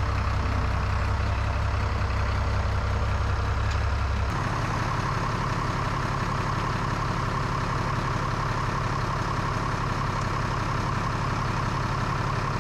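International 686 tractor's engine idling steadily, its tone changing about four seconds in.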